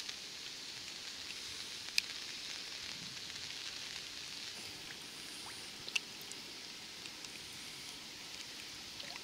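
Steady light rain falling, heard as an even hiss, with two sharp ticks about two and six seconds in.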